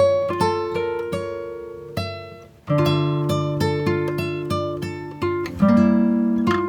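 Instrumental Punjabi ringtone tune played on a plucked string instrument: a quick run of picked notes that each ring and fade. The notes stop briefly about two and a half seconds in, then start again.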